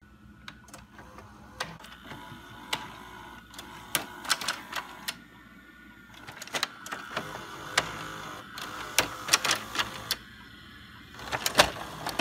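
Video cassette recorder mechanism clicking and clunking as a tape loads and starts to play: irregular sharp clicks over a faint low hum.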